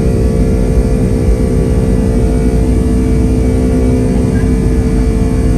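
Boeing 757-200 jet engines running, heard inside the cabin from a window seat: a loud, steady rush with a drone of several steady tones.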